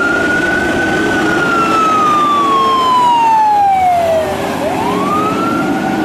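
Fire truck siren wailing: it rises, falls slowly over about three and a half seconds, and winds up again near the end, over a steady low rumble.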